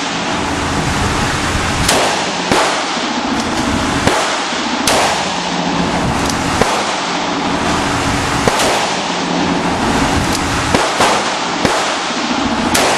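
Taurus .38 Special revolver firing: a string of sharp gunshots spaced irregularly, a second or more apart, over a steady background hum.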